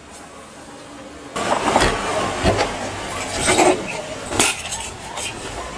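Clunks, knocks and rattles of a wooden railway-carriage door being handled and stepped through, starting suddenly about a second and a half in, over a steady rushing noise. There are four sharper knocks among them.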